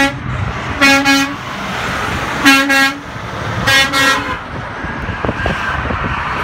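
Vehicle horns honking from traffic on the interstate: one blast ending right at the start, then three more in the first four seconds. Under them runs the steady rush of freeway traffic.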